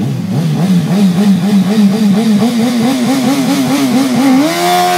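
Intro sound effect: a loud pitched tone wavering up and down about three times a second, rising near the end into a long tone that slowly falls.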